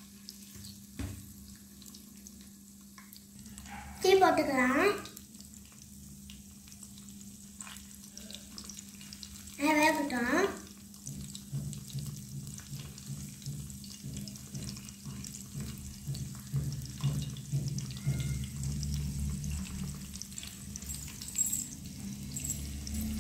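Hot oil sizzling as chicken pakoras deep-fry in a small iron kadai, with light clicks and scrapes of a metal slotted spoon and tongs turning them. Two brief, loud pitched sounds that glide up and down cut in about 4 and 10 seconds in.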